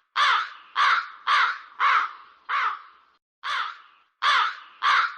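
A bird cawing: about nine harsh caws in a steady series, with a short pause about three seconds in.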